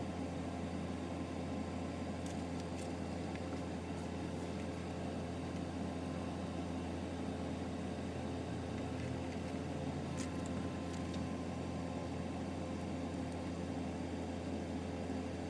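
A steady low hum with a constant hiss, like a fan or appliance running, unchanging throughout, with a few faint ticks.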